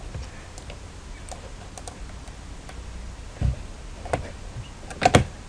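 Scattered clicks of a computer mouse and keyboard at a desk, with a low thump about three and a half seconds in and a louder pair of clicks near the end.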